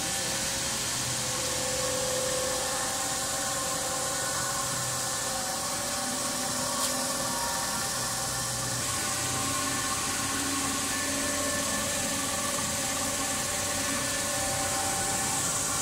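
HN1600 PET film slitting machine running at high speed, slitting and rewinding 23 µm PET film. It makes a steady rushing noise with several faint hums that shift in pitch a few times.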